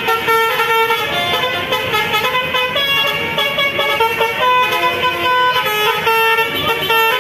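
Basuri (telolet) multi-tone air horns on tour buses playing melodic tunes, notes stepping in pitch every fraction of a second, with several horns overlapping one another in a horn battle.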